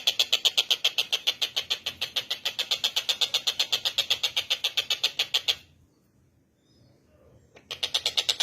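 Tengkek buto bird calling in a rapid, even, high-pitched rattling trill of about ten notes a second. The trill breaks off about five and a half seconds in and starts again after a pause of about two seconds.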